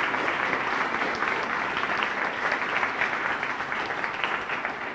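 Audience applauding, a dense patter of many hands clapping that eases off a little near the end.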